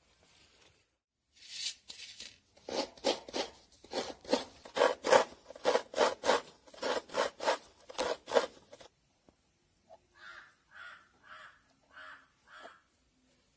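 Fresh coconut scraped against the serrated metal blade of a traditional coconut grater, in quick, even scraping strokes about three a second. After a short break the scraping returns more quietly and slowly near the end.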